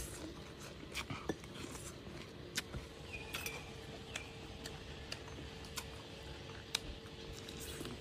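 Faint eating sounds over a plate of Khmer pounded raw shrimp with water spinach: scattered small clicks and clinks of spoons and food, about one or two a second, over a faint steady hum.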